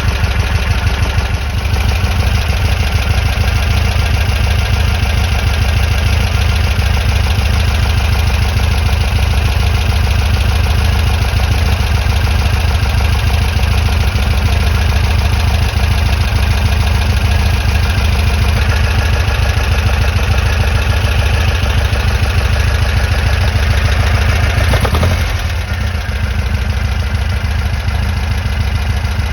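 An air-cooled VW flat-four engine idling steadily, with a rapid even beat of firing pulses. The level dips a little about 25 seconds in.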